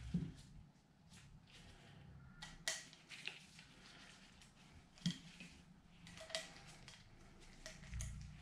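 Faint, scattered clicks and light taps of small hand tools and parts being picked up and handled on a workbench.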